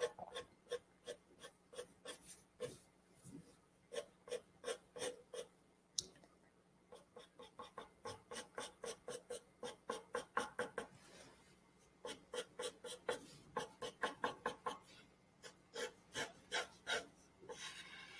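Pencil shading on paper: quick short scratching strokes, about three or four a second, in runs with brief pauses between them.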